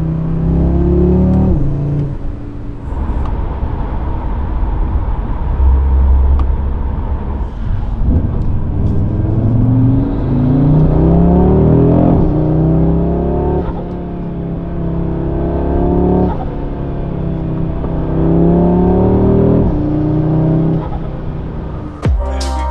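2024 Audi RS3's turbocharged 2.5-litre five-cylinder engine accelerating hard through the gears. Its pitch climbs and then falls back at each upshift, several times over.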